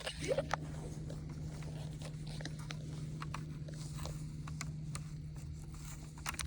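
Small clicks and ticks from handling and removing the plastic coupler of an HO scale model locomotive, over a steady low hum. A brief squeak comes about a third of a second in.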